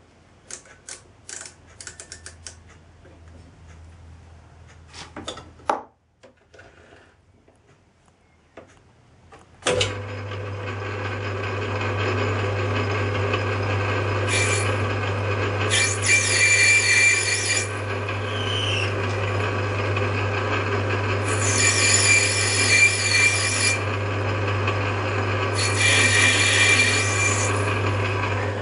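A few light clicks and taps, then about ten seconds in a Myford metalworking lathe starts and runs with a steady motor hum. Over the hum come three cutting passes of a couple of seconds each as the tool turns a brass bar down to size: a scraping hiss with a thin high tone.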